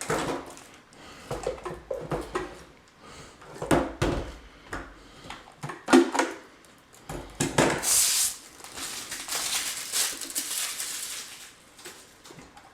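Unboxing handling noise: hard plastic vacuum parts knocking and clattering, with a few seconds of packaging rustling near the end.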